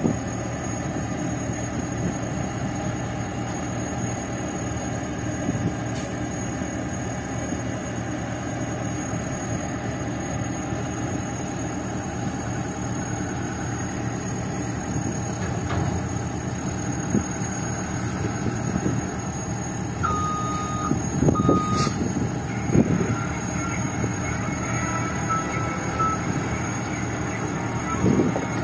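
Heavy diesel engines of a dump truck and a tracked excavator running steadily. A high electronic warning beeper comes in about two-thirds of the way through and sounds in short repeated beeps towards the end.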